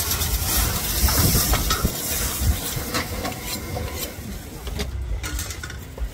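Steak flaming in a pan over the fire: a loud, steady hiss and sizzle with a low rumble under it, thinning out about five seconds in as the flames die down.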